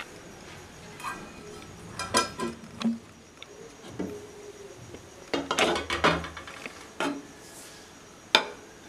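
A glass cooking lid clinking and knocking against the rim of a metal kadai as it is lifted off, then a slotted metal spatula scraping and tapping in the pan through cooked rice. Scattered short ringing clinks, with a sharp tap near the end.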